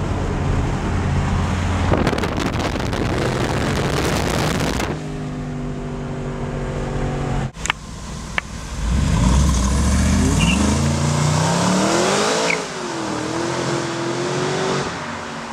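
Renntech-tuned Mercedes-Benz SLR McLaren's supercharged V8 pulling hard, heard from inside the cabin, then settling to a steady drone. After a break about seven seconds in, it is heard from outside revving up and accelerating away, its note climbing.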